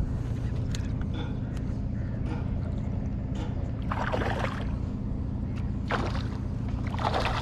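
A watercraft engine running steadily with a low, even hum. Two short rushes of noise come over it, one about four seconds in and one near the end.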